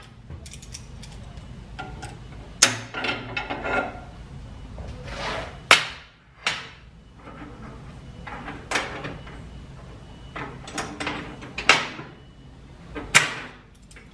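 Bent metal rods clinking and knocking as they are handled and laid down on a metal workbench. The knocks come irregularly, a dozen or so sharp ones spread across the stretch.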